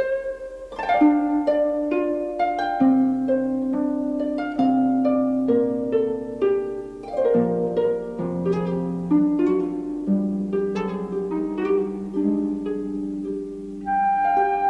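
Film score music: a harp and plucked strings play a flowing melody over held bowed string notes. A steady held note, likely a flute, enters near the end.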